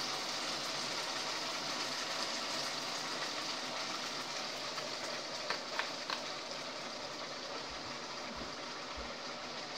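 Pan of chicken wings cooking in soy-sauce gravy, sizzling steadily, with a few light clicks about five and a half to six seconds in.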